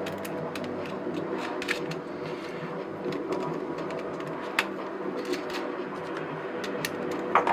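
Small hard clicks and taps of electronic kit parts and hardware being handled, scattered irregularly, the loudest near the end, over a steady background hum.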